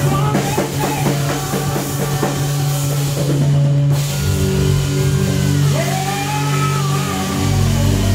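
Live worship band music: a drum kit plays a beat for about the first four seconds, then the drums drop out and held chords ring on while a voice sings a long gliding line over them.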